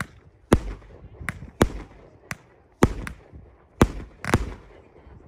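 A 25-shot 200 g firework cake firing, about eight sharp bangs at uneven half-second to one-second intervals, each followed by a short echo.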